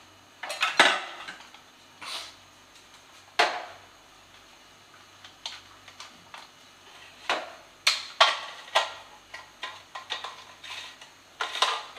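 Mixer-grinder jar and its parts knocking and clicking as they are handled and fitted together: about half a dozen short, sharp knocks spread out, with quiet between.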